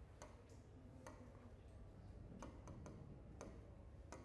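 Faint, irregular clicks and taps of a hand working a touchscreen display, about eight in all, over near-silent room tone.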